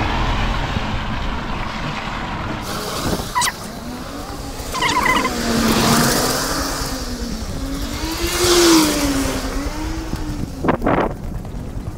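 A car driving past on a wet road, its tyres hissing on the wet tarmac; the hiss swells and fades twice.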